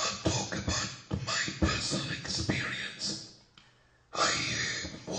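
A voice talking in bursts, so harsh and distorted that no words come through, with a short pause a little after three and a half seconds in.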